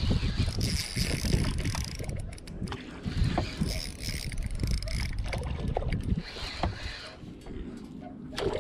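Water lapping against a small boat's hull, with wind buffeting the microphone in uneven gusts.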